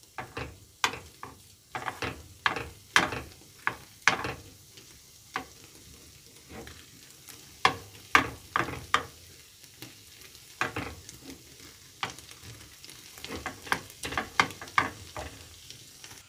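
Metal spoon stirring soft white cheese in a frying pan, giving many irregular sharp clinks against the pan. Under them is a faint sizzle as the cheese melts and its whey bubbles out.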